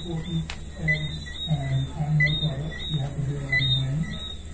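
Night chorus of small frogs and insects: short high chirping whistles, several a second, over a steady high pulsing hiss. Low voice-like tones that change pitch every half second or so sit underneath and are the loudest part.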